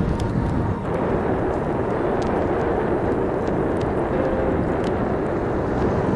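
Steady low rushing rumble of wind buffeting the microphone, with a few faint ticks.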